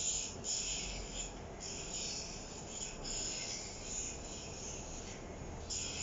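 A nail file rasping on a parrot's claws in a run of uneven strokes, a scratchy high hiss with short breaks between strokes.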